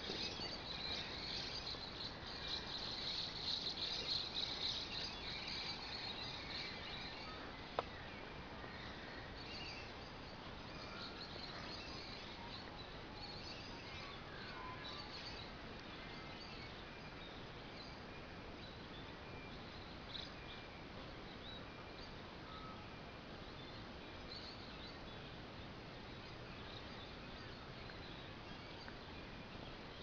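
Birds chirping in open bushland: a dense high chorus over the first several seconds, thinning to scattered short chirps. A single sharp click about eight seconds in.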